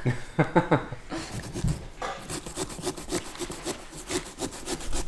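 Small serrated pumpkin-carving saw cutting through a pumpkin's rind around the stem in quick, even back-and-forth strokes, several a second, starting about two seconds in. A woman laughs at the start.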